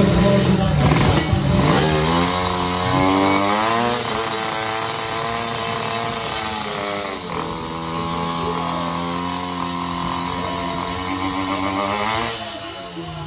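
Two-stroke drag-bike engine revved and held at high revs on the start line, its pitch wavering slightly, easing briefly about halfway and dropping away near the end.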